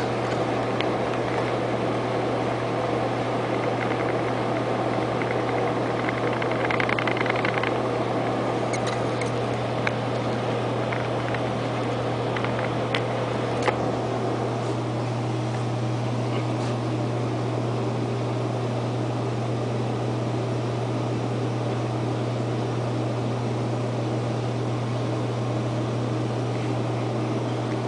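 Panasonic NA-FS12G1 12 kg top-load washing machine with an inverter drive in its spin cycle: the drum spinning with a steady, even low hum, and a few faint ticks.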